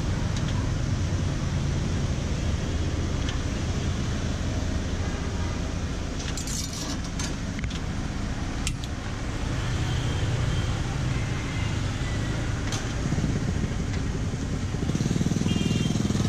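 Motorbike and street-traffic engines running steadily, with a few short sharp clicks over the rumble.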